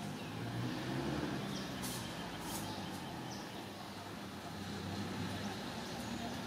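A low, steady engine hum with a few faint high chirps over it.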